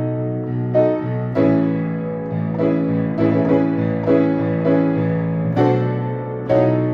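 Keyboard music with a piano sound: chords and single notes struck about once or twice a second, each ringing on and fading before the next.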